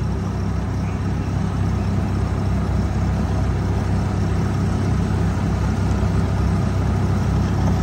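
Kubota tracked rice combine harvester running steadily, its diesel engine giving a constant low hum under the clatter of the machine.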